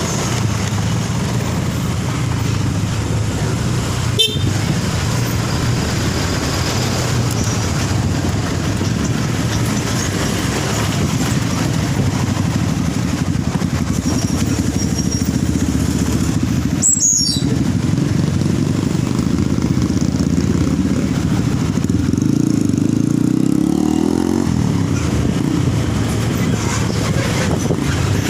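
A motor vehicle's engine running steadily with road noise. Its pitch rises for a couple of seconds near the end, as when accelerating, and there are two brief sharp knocks along the way.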